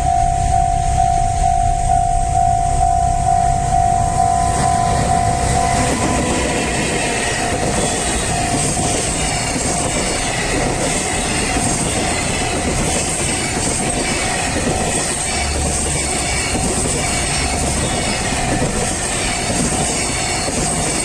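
Japanese railway level crossing alarm ringing in an evenly repeating electronic tone. About six seconds in, a train passes over the crossing, its wheels clattering rhythmically over the rail joints, while the alarm keeps ringing under it.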